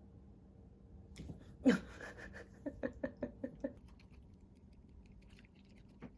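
A house cat vocalizing: one loud falling meow, then a quick run of about five short calls.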